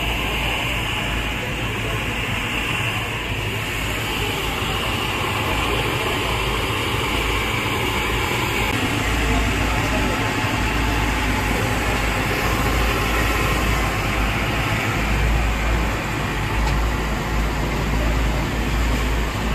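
Busy street ambience: a steady rumble of traffic and engines, with people chattering in the background.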